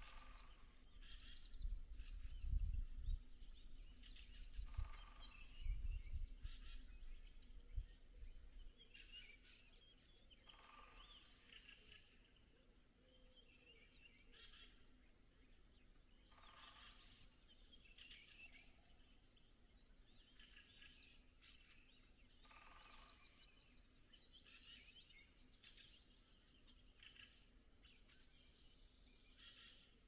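Faint dawn birdsong from several songbirds: many quick high trills and chirps overlapping, with one louder phrase repeating about every six seconds. An irregular low rumble runs under it for the first eight seconds or so.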